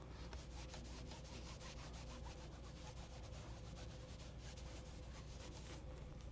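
Sponge rubbed and dabbed against a painted canvas in quick, repeated strokes, a faint fast scratchy rubbing.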